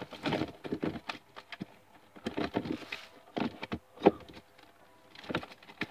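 Rummaging through things on a shelf overhead to pull out a hoverboard charger: irregular rustling and clattering of objects and cords, with one sharper knock about four seconds in.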